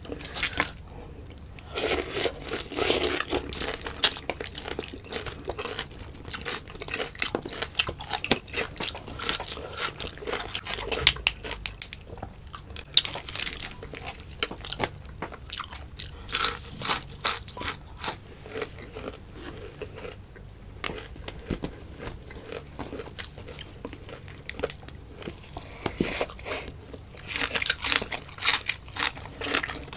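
Close-miked eating sounds: biting and chewing of boiled food, with many irregular sharp clicks and mouth noises.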